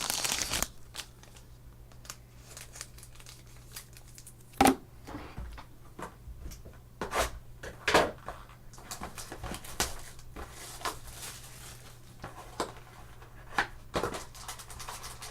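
Trading-card packs and cards being handled: wrapper crinkling and tearing, with scattered taps and clicks, the sharpest about four and a half and eight seconds in.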